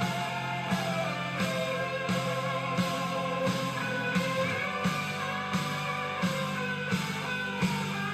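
Background music with a guitar melody over a steady beat.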